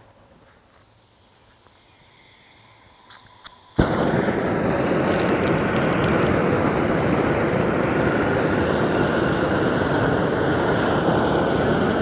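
Propane weed torch: gas hisses faintly and grows as the valve is opened, a few clicks, then the torch lights with a sudden whoosh about four seconds in and burns with a loud, steady rushing flame.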